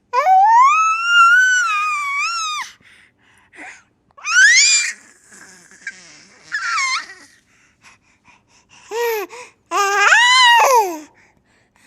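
Baby squealing and shrieking with glee in high-pitched calls: one long rising squeal of nearly three seconds, then shorter squeals with pauses between, several bunched together near the end.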